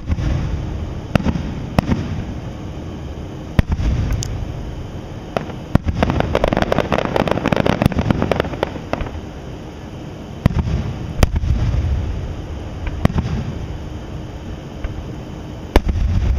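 Aerial firework shells bursting overhead: a series of sharp bangs and deep booms every second or two, with a dense run of rapid crackling about six to eight seconds in.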